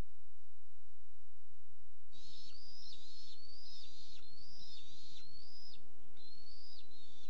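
A bird calling over and over, starting about two seconds in: a high whistle that rises and then drops off sharply, about one call every 0.7 s. A steady low hum runs underneath.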